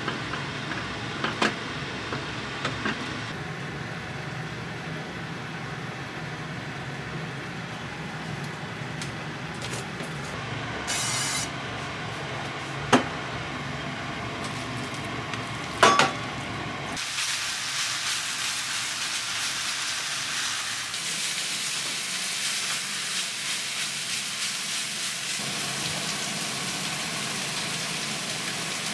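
Minced meat frying in an oiled frying pan: a steady sizzle that starts a bit past halfway through, once the meat goes in. Before it comes a steady low hum with a few sharp knocks.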